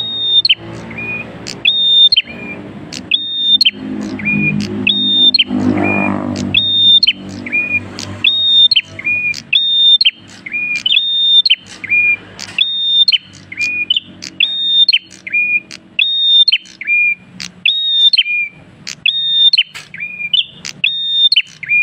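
Caged prenjak kristal singing hard: a sharp two-note phrase, a high whistled note then a lower one, repeated about once a second. A low drone runs underneath for the first several seconds.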